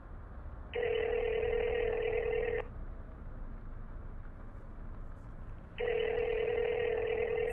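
Telephone ringback tone of an outgoing call: a steady, slightly buzzy tone held about two seconds, sounding twice about three seconds apart, while the call has not yet been answered. A faint low hum lies underneath.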